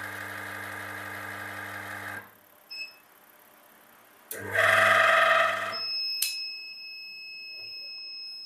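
Semi-automatic washing machine wash motor humming on inverter power. It cuts out about two seconds in, comes back louder for about a second and a half, then cuts out again as the inverter battery sags under the motor's heavy load. A steady high-pitched tone then starts and holds, typical of the inverter's warning alarm.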